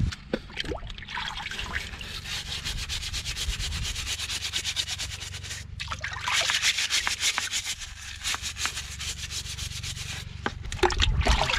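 Rapid back-and-forth scrubbing of a barnacle-fouled pulley with a handheld scrubber in a tub of water, briefly pausing a little over halfway.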